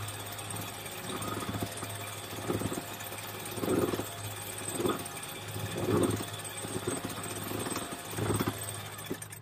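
Sailboat cockpit winch being worked by hand to bring in a line, with a rough grinding pulse about every second, over a steady low hum.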